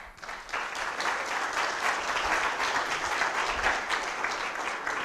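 Audience applauding, a dense patter of many hands clapping that builds quickly at the start and then holds steady.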